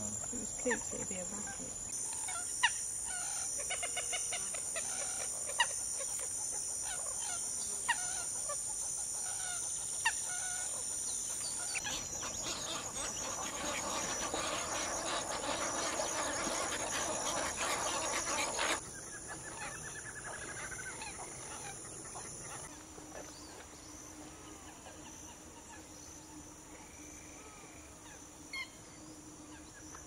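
Outdoor wetland sound of birds calling over a steady high insect drone. In the first seconds there are sharp single calls every two to three seconds. A dense chorus of calls fills several seconds in the middle and then breaks off abruptly.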